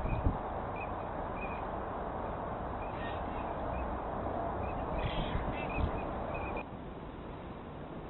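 Short, repeated calls from distant waterbirds, in scattered clusters, over a steady rushing background that drops suddenly near the end.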